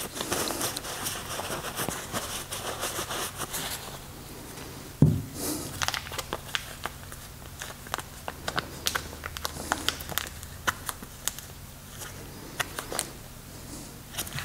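Cloth rubbing as a shop towel wipes grease off brake parts for about four seconds, then one loud knock about five seconds in, followed by scattered light clicks and taps of small metal brake hardware being handled on a rubber bench mat.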